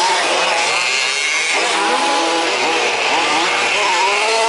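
Several 1/5-scale remote-control race trucks' small two-stroke petrol engines revving and easing off as they race, their pitches rising and falling over one another.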